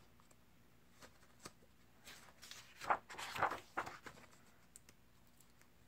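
Pages of a rule book being turned by hand: a couple of faint clicks, then soft paper rustles and brushes in the middle.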